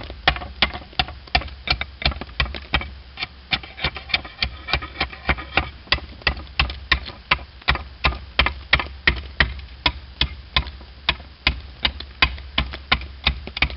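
Slater's hammer chopping the edge off a slate shingle in quick, even strikes, about three a second, trimming it down to a marked cutting line.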